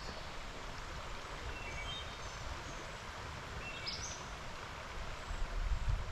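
Steady rush of stream water, with a few short, high bird chirps scattered through. Wind starts buffeting the microphone with low rumbles near the end.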